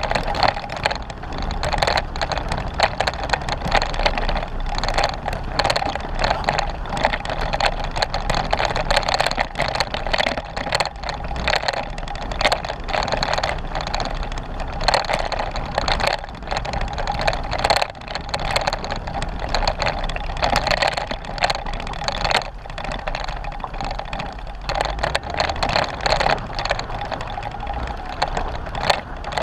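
Jeep Wrangler driving over a rough dirt trail: the engine runs low under a constant dense rattling and clicking.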